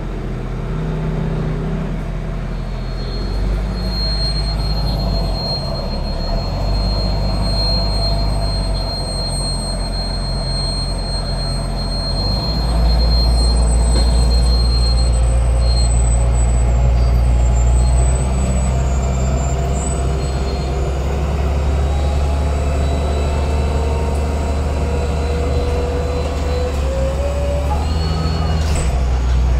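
LAZ A183D1 city bus under way, heard from inside: a steady engine and road drone that steps up in pitch and level as it pulls, louder for a few seconds from about twelve seconds in. A thin high whistle sounds for several seconds a few seconds in, and a rising whine comes near the end.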